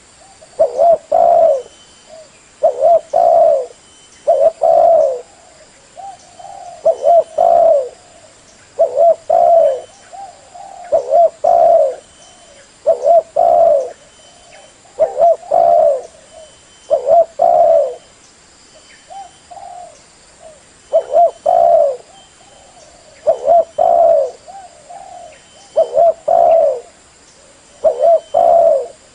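Spotted dove cooing over and over, loud, in short phrases of a few coos about every two seconds: the species' call used as lure audio to attract the bird.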